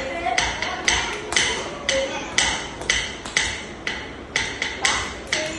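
Sharp time-keeping strikes in a steady beat, about two a second, each ringing briefly in a hard-floored hall, pacing Bharatanatyam step practice.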